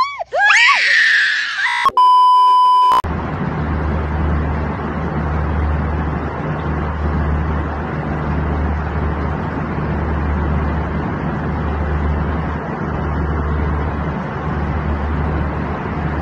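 Airliner cabin noise: a steady low drone with an even rushing hiss. It is preceded by a child's crying voice and then a loud one-second beep tone.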